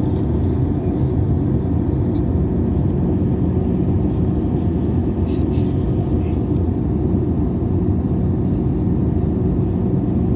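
Steady, low cabin noise of a jet airliner in flight, the underwing turbofan engine and the rushing air heard through the fuselage from inside the cabin.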